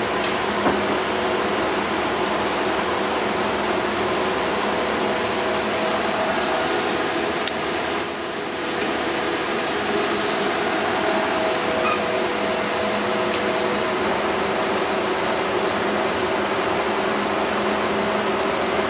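Bullard Cutmaster 42 vertical turret lathe running with its table turning: a steady mechanical hum and hiss with several held tones. The sound dips briefly about eight seconds in, and one of the tones drops out near fourteen seconds.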